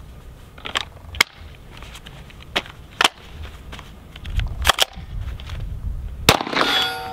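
Sharp clicks and clacks of a Smith & Wesson M&P FPC folding 9mm carbine being readied: magazine seated, carbine unfolded and locked, charging handle worked. About six seconds in, a single 9mm shot cracks out, the loudest sound here.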